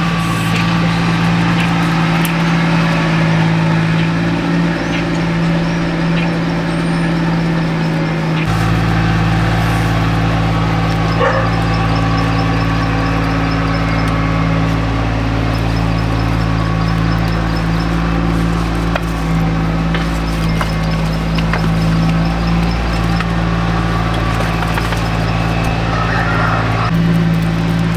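A motor engine running steadily, its note shifting about eight seconds in.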